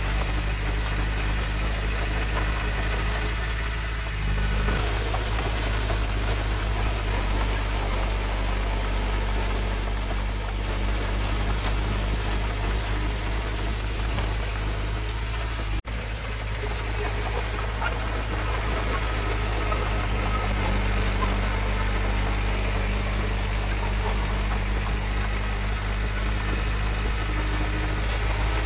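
Diesel engine of heavy earthmoving equipment running steadily at an even speed, with a momentary break in the sound about halfway through.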